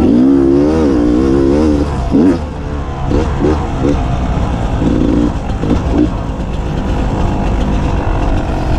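Beta 300 RR two-stroke enduro dirt bike engine on the move, revving with pitch rising and falling for the first couple of seconds, then a few short throttle blips over a steady low drone.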